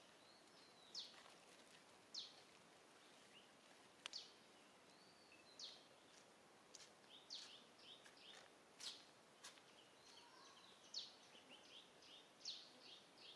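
Faint birdsong: short, high chirps that sweep downward, repeated about once a second, with softer twittering notes between them.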